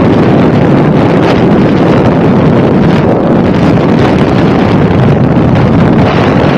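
Loud, steady wind rushing and buffeting over the microphone.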